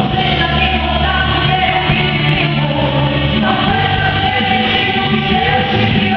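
Live Christian worship song, sung by several voices together over instrumental backing, with long held notes and a steady bass line.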